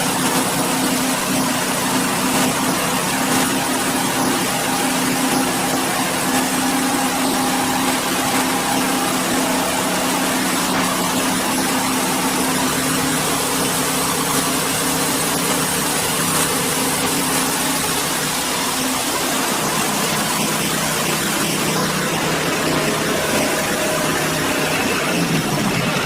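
Portable horizontal wood band sawmill running: a steady engine hum with a blade and machine whir over it.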